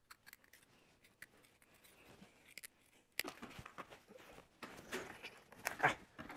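Faint handling noises: small hand tools and a packet rustled, picked up and set down on a board, in short scattered clicks and rustles, with a louder clatter shortly before the end.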